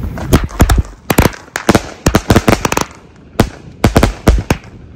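A 200-shot consumer fireworks cake firing: a rapid string of sharp bangs, about three a second, beginning just after the start with a brief lull midway.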